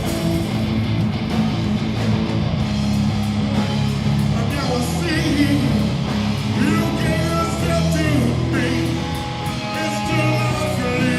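Live rock band playing, with electric guitar prominent over the band.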